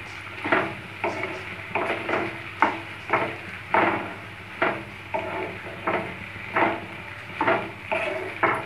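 A spatula stirring boiled fusilli pasta and sliced vegetables in a nonstick kadai: repeated scraping strokes against the pan, about two a second.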